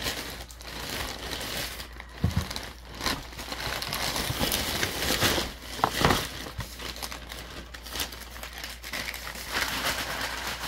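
Plastic packaging crinkling and rustling as plastic bags are handled and opened, with a couple of sharp knocks about two and six seconds in.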